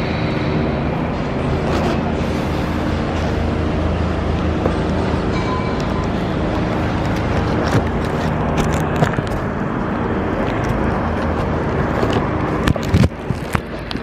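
City road traffic with a vehicle engine running steadily, heard from a bicycle riding through the street. Near the end the steady noise drops away and a few sharp clicks and knocks follow.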